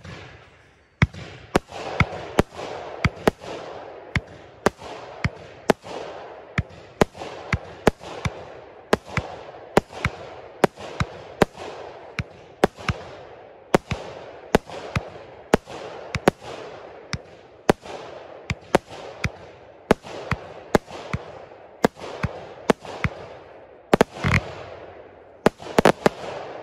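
BEM Shimmering Brocade 30-shot consumer firework cake firing its gold brocade and glitter shells: about thirty sharp shots, roughly one a second, each followed by a fading hiss. The loudest bang comes about 24 seconds in, and a quick run of shots follows near the end.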